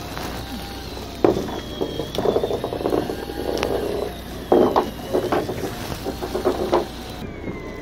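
Flounder landing and flopping on a boat's deck, heard as several bursts of rapid slapping knocks over the steady hum of the boat's engine.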